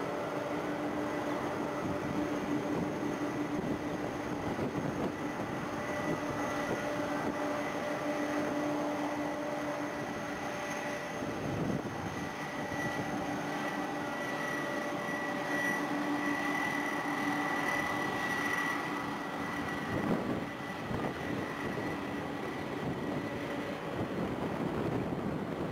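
Boeing 777-300ER's GE90 jet engines on final approach: a steady engine drone over a rushing noise, with several held tones.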